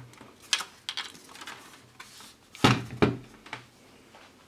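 A few sharp knocks and clacks of the unit's plastic front panel and metal casing being handled on a wooden table, the loudest a dull thud about two and a half seconds in.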